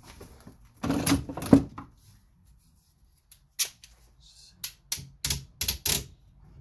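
Wood pieces shifted and scraped against each other, then a run of sharp, irregular clicks and knocks, about six of them in under three seconds, as parts are set in place and tightened.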